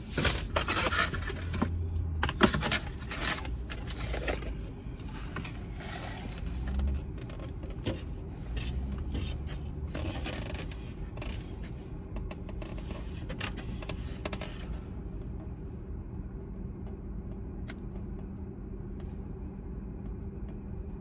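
Scraping, rustling and light knocks of a foam takeout clamshell and paper cup being handled, over a steady low hum of the car cabin. The handling stops about three-quarters of the way through, leaving only the hum.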